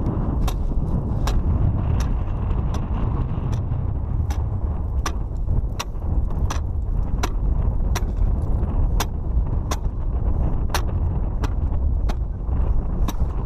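Ice auger boring a hole through clear lake ice: a steady rumble with a sharp click a little more than once a second as the bit turns and throws out ice chips.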